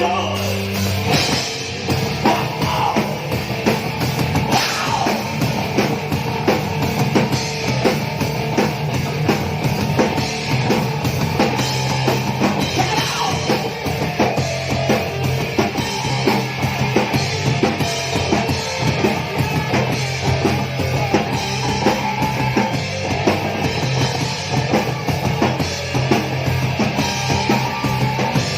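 Crust punk band playing live, an instrumental passage with fast, dense drumming under heavy guitar and bass riffs.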